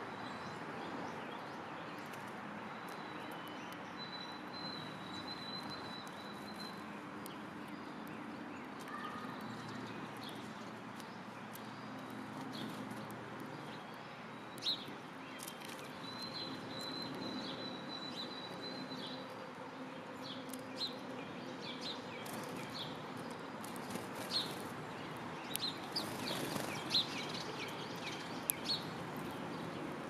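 Small songbirds chirping over a steady outdoor background hiss: a thin trilling call twice, then a run of short, sharp chirps near the end.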